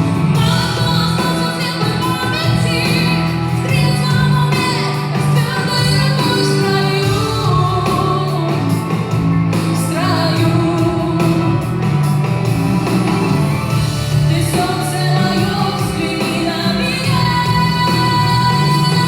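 A woman singing a song with instrumental accompaniment, her voice wavering in melody over a steady low backing.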